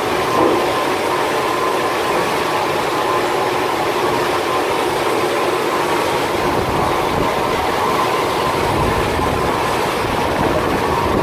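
WANLONG LXM-20 automatic stone line polisher running: its polishing-head motors and slab conveyor make a steady, loud mechanical drone with a high hum. A deeper rumble grows over the last few seconds as a stone slab feeds under the polishing heads.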